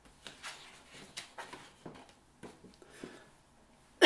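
Faint, irregular rustles and light clicks of a paper picture card being picked up and handled. A sudden loud cough breaks in at the very end.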